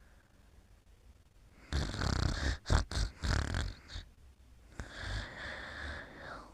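Snoring in deep sleep: after a short quiet pause, one loud, ragged snore lasting about two seconds, then a softer snoring breath near the end.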